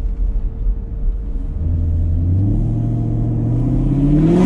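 2019 Camaro SS's 6.2-litre V8 with long-tube headers, heard from inside the cabin while driving into a tunnel: a low rumble at first, then about halfway through the throttle opens and the exhaust note climbs steadily in pitch and gets louder as the car accelerates.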